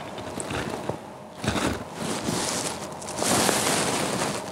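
Dry leaves rustling and crunching in uneven bursts, loudest about three seconds in.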